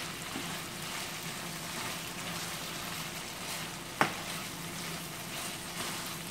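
Ground-meat and tomato sauce sizzling steadily in a frying pan while being stirred and scraped with a slotted spatula, with one sharp knock of the spatula against the pan about four seconds in.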